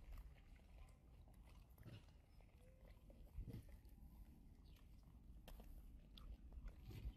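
Baby macaque biting and chewing a piece of soft fruit close to the microphone: faint wet smacks and clicks of mouthing and chewing, scattered through a near-quiet background.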